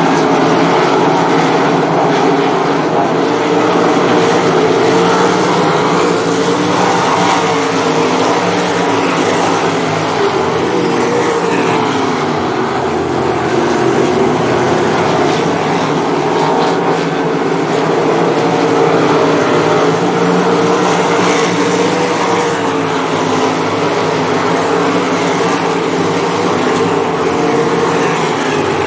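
A pack of 305 sprint cars racing on a dirt oval, their 305-cubic-inch V8 engines running loud and steady. The engine notes rise and fall slightly in pitch as the cars circle the track.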